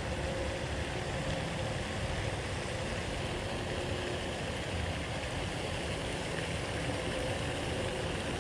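Steady, even background noise with a low rumble, with no distinct events.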